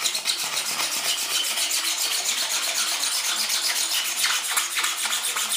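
Hand sanding a fiberglassed wooden wing panel: fast, even back-and-forth strokes, several a second, kept up steadily.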